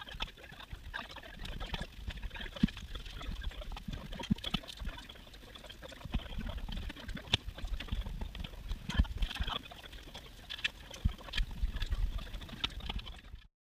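Kitchen knife knocking irregularly on a cutting board as onions are chopped and handled.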